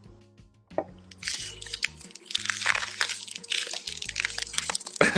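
Low background music with a steady bass line, overlaid from about a second in by dense, close crackling and crunching noises that grow louder toward the end.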